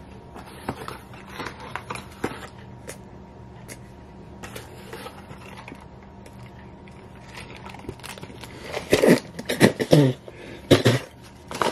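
Paper and cardboard packaging of a mini apple pie crinkling and rustling as it is unwrapped and handled, in faint scattered crackles. About nine seconds in come a bite into the pie and several loud voiced groans with the mouth full.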